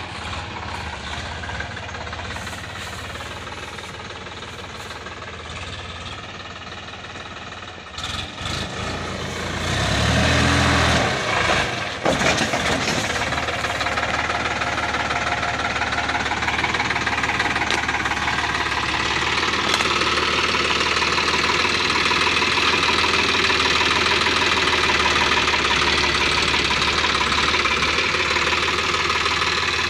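Sonalika DI-50 RX tractor's diesel engine running as the tractor drives up. It grows louder about ten seconds in, then runs steadily close by.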